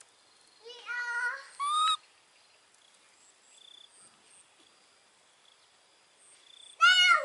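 Baby macaque calling with high, pitched coos: two calls in quick succession about a second in, then another near the end.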